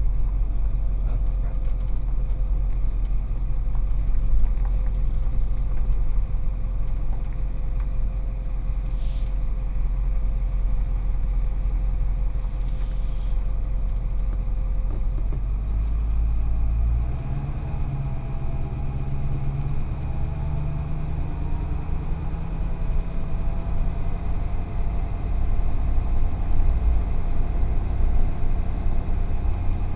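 Tow truck engine running steadily; about halfway through its note changes and a higher hum joins it as the truck gets under way.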